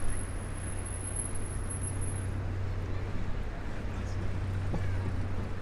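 Steady low rumble of city traffic at street level. A faint high-pitched whine fades out about two seconds in.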